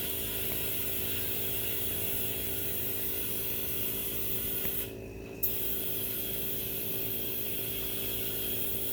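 Air compressor running steadily with the hiss of air filling a car tire toward 40 psi. About halfway the hiss cuts out for half a second and comes back with a sharp click.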